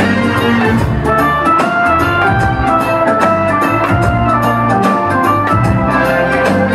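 Live band playing an instrumental passage of an Iraqi pop song: an organ-like keyboard carries the melody over drums and percussion keeping a steady beat.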